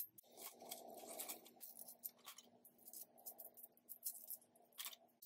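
Faint clicks and clinks of loose coins being picked through in a palm and set down on a paper page, over a faint steady hum.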